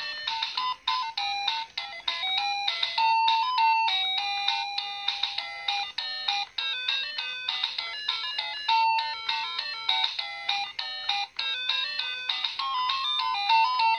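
Anpanman toy kitchen playing its built-in electronic melody: a simple beeping tune of quick stepped notes, like a ringtone.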